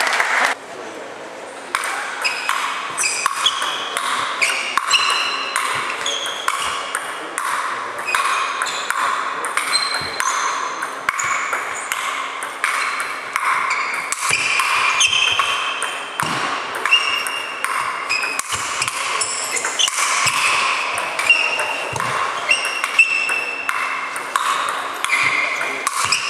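A table tennis ball in a long rally, clicking off the table and off sandpaper-faced hardbat paddles. After a brief lull the hits come quickly and steadily, each with a short high ring.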